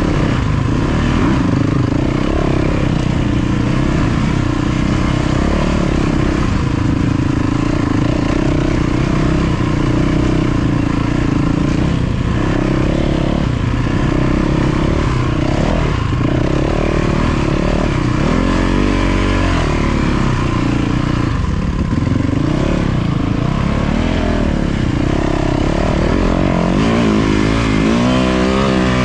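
450cc four-stroke dirt bike engine being ridden, its pitch rising and falling with the throttle, with a clear climb in revs near the end.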